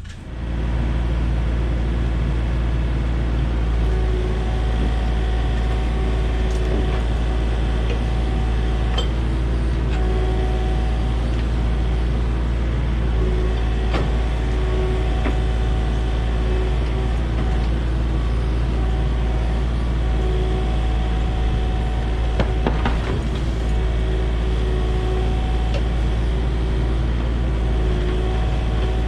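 Kubota KX040 mini excavator's diesel engine running steadily under work, with a higher hydraulic whine that comes and goes as the controls are worked, and a few knocks.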